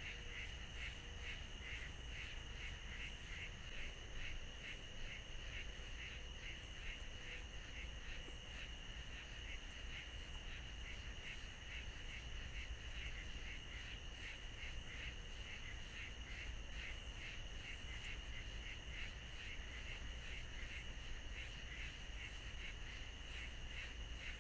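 A steady chorus of calling insects or frogs: a high trilling band that pulses in a fast, even rhythm throughout, over a low background rumble.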